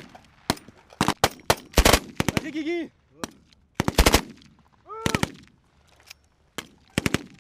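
Light machine gun, an FN Minimi type, firing several short bursts of automatic fire. Short shouted calls come between the bursts.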